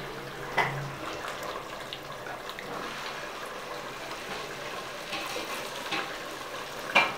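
Metal ladle scooping green vegetable stew from a steaming pot and pouring it into a ceramic plate, with liquid splashing and dribbling. A sharp clink comes about half a second in and another near the end.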